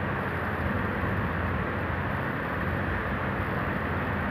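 Steady background hum and noise, unchanged throughout, with a low drone underneath.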